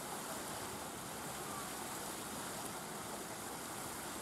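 Steady background hiss of open-air ambience with faint, indistinct distant voices; no distinct event.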